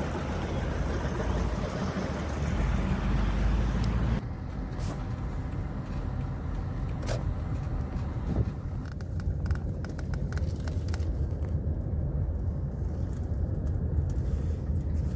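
Moving car heard from inside the cabin: a steady low rumble of engine and road. For the first four seconds a broad rushing noise rides over it, then cuts off abruptly, leaving the rumble with a few faint clicks.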